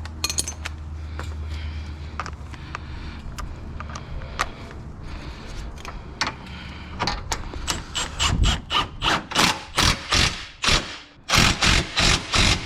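Hand ratchet with an 18 mm socket turning a nut on a UTV's axle hub: light clicks at first, then about halfway in a quick run of ratcheting strokes, roughly two a second.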